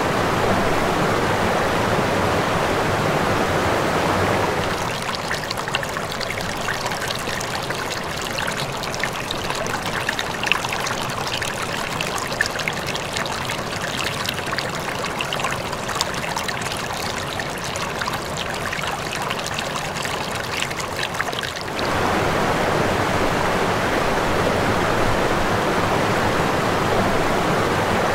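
Water of the Kumečiai waterfall falling into its round stone well as a dense, steady rush. About five seconds in it gives way to a shallow stream running over stones, lighter and brighter, with many small splashes. About 22 seconds in the heavier rush of falling water returns.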